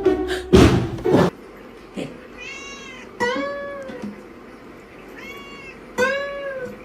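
A cat meowing four times, each meow a short call that rises and falls in pitch, the second and fourth louder. A loud, brief burst of other sound comes before them in the first second or so.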